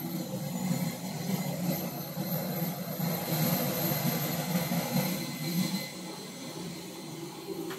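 Jet aircraft noise on an airport apron: a steady rumbling hum with a thin high whine, swelling in the middle and easing off near the end.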